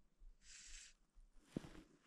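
Faint, short hissing swishes of a fly rod and line being false-cast, about one and a half seconds apart, with a single soft knock about three-quarters through.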